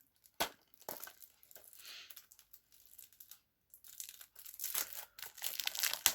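Plastic shrink-wrap on a Blu-ray case crinkling and tearing as it is picked at and pulled open, with two sharp clicks in the first second and busier crackling from about four seconds in.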